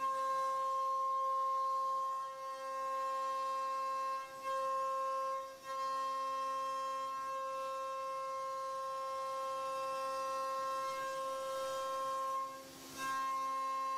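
CNC router spindle milling wood: a steady whine with a ladder of overtones, briefly dipping a few times as the cut changes.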